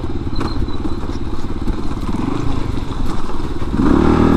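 Kawasaki KLR250's single-cylinder four-stroke engine running under way, revving up briefly about halfway through, then opening up louder near the end.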